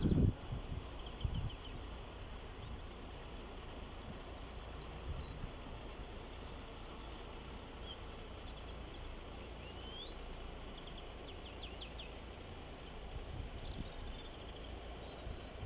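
Quiet outdoor ambience: a steady low rumble with scattered small-bird chirps, short clicking trills and the odd rising whistle. No crossing alarm is sounding.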